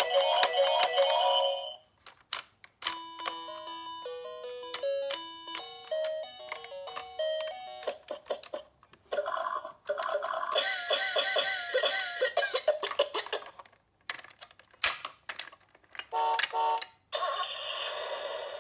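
A run of electronic chime and beep tones in short stepped melodic phrases. A warbling tone comes in from about ten to thirteen seconds in.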